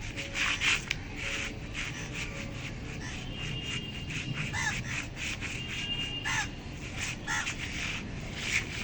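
Short animal calls repeated about once a second, with scattered clicks and rustling.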